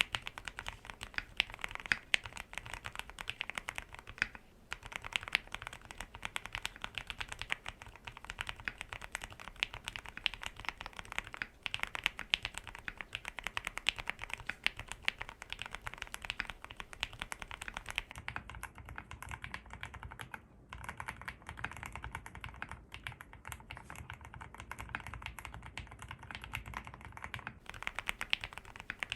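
Continuous fast typing on a ZOOM65 mechanical keyboard with Outemu transparent switches: a dense run of keystroke clacks, with brief pauses about 4, 11 and 20 seconds in.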